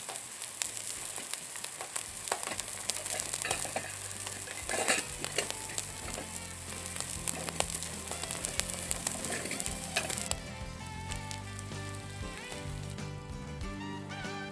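Food frying in a pan, a steady sizzle with scattered sharp pops. Background music comes in about two-thirds of the way through and takes over.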